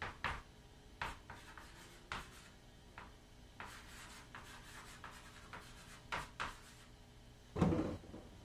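Chalk writing on a wall-mounted chalkboard: short scratchy strokes and taps, with one longer stroke partway through. A duller thump near the end is the loudest sound.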